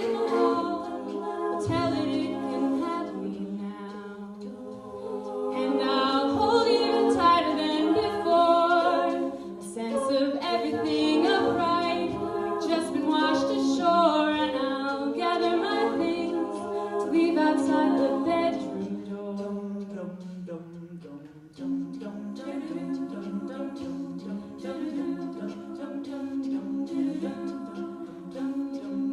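A cappella vocal group singing in harmony, voices only with no instruments, holding and moving through chords. The sound drops away briefly about three-quarters of the way through, then the voices come back in.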